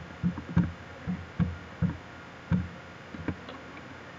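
Soft, low knocks coming irregularly, about two or three a second, over a faint steady hiss.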